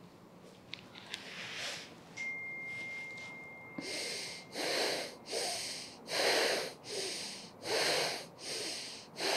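A man breathing audibly and rhythmically in and out, the paced breaths held in a lying yoga spinal twist, starting about four seconds in and going on at roughly one breath in and out every second or so. A faint, thin, steady high tone sounds for a couple of seconds just before the breathing begins.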